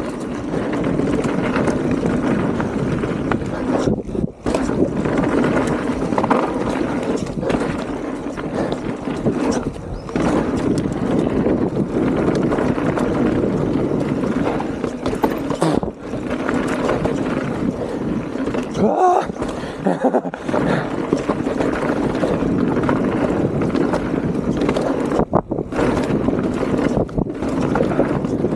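Mountain bike riding fast down a wet dirt trail: a steady rush of wind and tyre noise, broken by a few brief dips.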